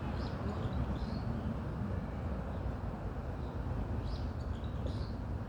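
Steady wind in a forest, a dense even rushing, with short high bird chirps a few times, near the start and again about four to five seconds in.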